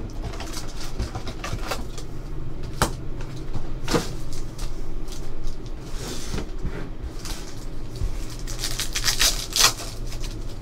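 Cardboard hobby box and foil card packs being handled: scattered rustles and clicks, then a run of foil crinkling near the end as a trading-card pack is torn open.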